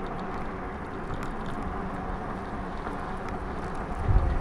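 Electric fatbike riding on asphalt: a steady hum from its electric motor with tyre and wind noise on the microphone, and a short low thump about four seconds in.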